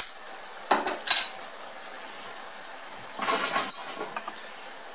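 A spoon stirring ground-beef picadillo in a frying pan: a few knocks and scrapes, with a louder cluster of ringing clinks against the pan about three seconds in, over a steady faint hiss of the simmering sauce.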